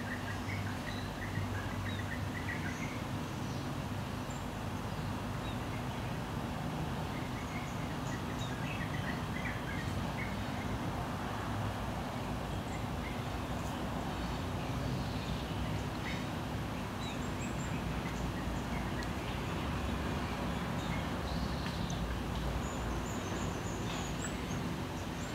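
Outdoor yard ambience: a steady background hiss and faint low hum, with scattered short bird chirps.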